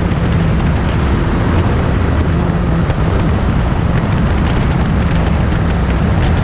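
A 1960s prototype racing car's engine running hard at high revs, a loud steady drone with wind noise on the microphone.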